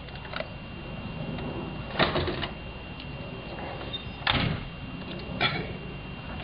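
Clicks and clunks from a Corvette's body hardware: a car door shut with a thud about four seconds in, with other sharp latch clicks around it, the loudest about two seconds in.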